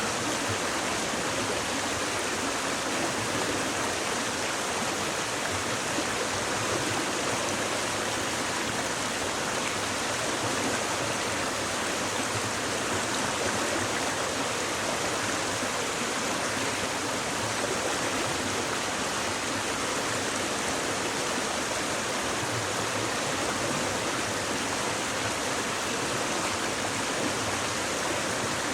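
Shallow stream babbling over rocks: a steady, even rush of flowing water.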